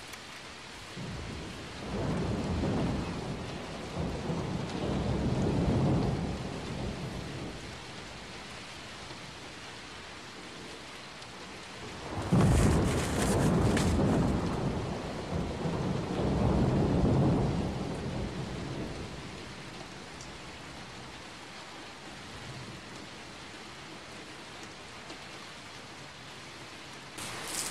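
Steady rain with two long rolls of thunder, the first building about two seconds in and the second starting with a sharp crack about twelve seconds in, each rumbling for several seconds before dying back to the rain.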